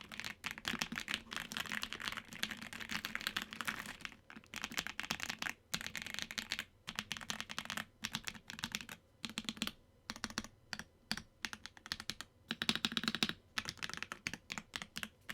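Typing on a Redragon 60% mechanical keyboard with Dragon Breath linear switches: quick runs of keystrokes broken by short pauses, slowing to separate presses in the second half before a last quick run.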